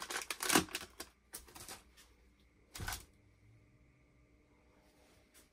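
Spice bottles and jars knocking and clicking against each other as someone rummages through a kitchen cabinet: a quick run of clatter in the first two seconds and one more knock near three seconds.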